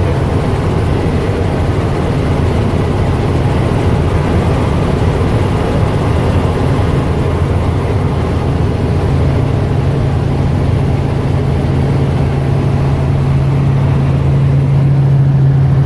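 Helicopter engine and rotor noise heard from inside the cabin: a loud, steady low drone, with a low hum that grows stronger about nine seconds in.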